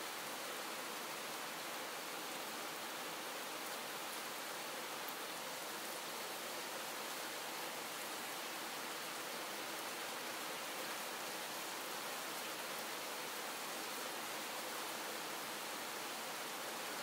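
Calm, steady rain falling, an even hiss.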